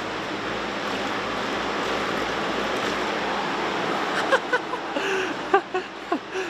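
A steady rushing noise for about four seconds, then a handful of short, high squeaks and chirps.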